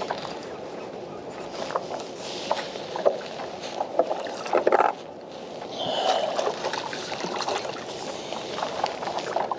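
Water splashing and scattered clicks and knocks at the side of a kayak as a hooked flathead is reeled in and scooped into a landing net, with a few louder splashes around the middle.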